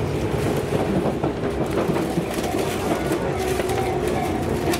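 Tobu 6050 series electric train running, heard from inside the passenger car: a steady running noise of wheels on rails and motors.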